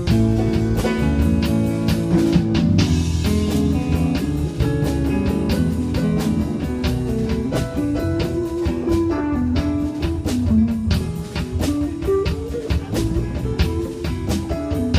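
Live band playing a slow blues in E: electric guitar lines over bass and a drum kit keeping a steady beat.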